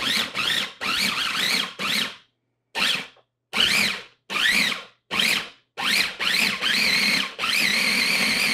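Small electric food processor pulsed about ten times, each pulse a short rising and falling motor whine, the last one held longer near the end. The blade is chopping a sauce of chilies and tomatoes to a chunky texture.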